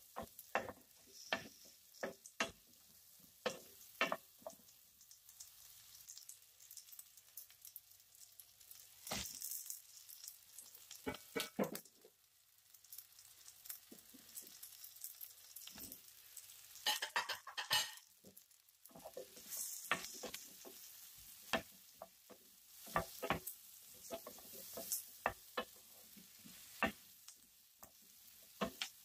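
Vegetables sizzling in oil in a pan while a wooden spatula stirs and scrapes, giving frequent sharp knocks against the pan. About two-thirds through comes a denser clatter as sliced carrots go into the pan, then the stirring and sizzling go on.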